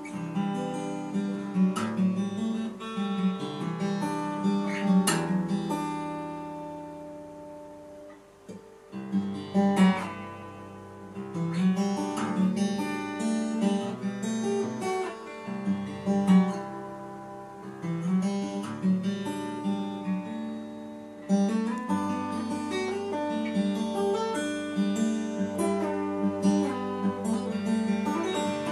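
Solo steel-string acoustic guitar playing picked and strummed chords, with no voice. The playing thins out and falls quieter about six to eight seconds in, then builds again, and is fuller and louder from about twenty-one seconds in.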